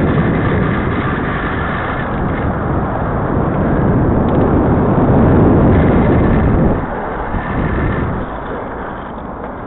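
Wind rushing over the microphone and rumble of a bicycle riding over paved paths, dropping in level about seven seconds in.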